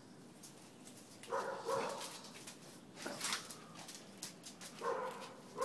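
A dog giving short, pitched whining yelps: a pair about a second and a half in and another pair near the end, with a brief rustle between.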